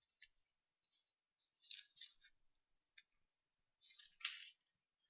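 Faint rustling of paper, a few short scratchy bursts about every second, as Bible pages are turned to find a passage.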